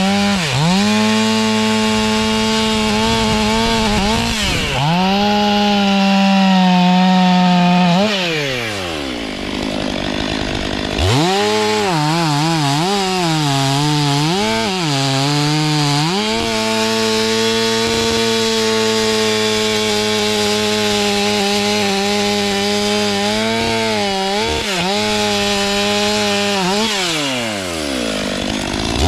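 STIHL MS 500i chainsaw running at full throttle and cutting wood, its pitch sagging and recovering as the chain takes load in the cut. About eight seconds in it drops back towards idle, revs up again about three seconds later, and falls and revs up once more near the end.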